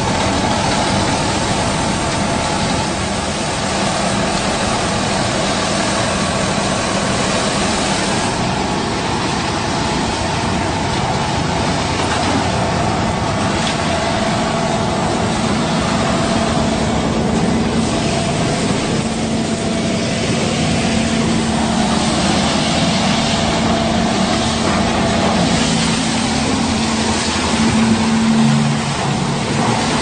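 Concrete mixer pump running: a steady machine drone with a few constant tones.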